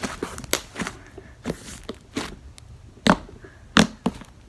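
Thick Model Magic slime being squeezed and stretched in the hands, giving irregular sharp pops and clicks, about two a second.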